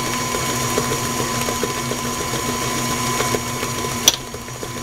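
Tilt-head stand mixer motor running steadily, its beater turning through creamy cookie batter of butter, sugar and egg, with a steady hum and light ticking. A sharp click about four seconds in.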